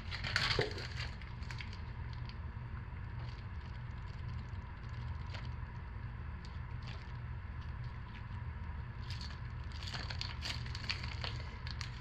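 Plastic piping bag crinkling and crackling in the hands as stiffening hot-process soap is squeezed out through the metal tip. There is a louder rustle about half a second in and a cluster of crackles near the end, over a steady low hum.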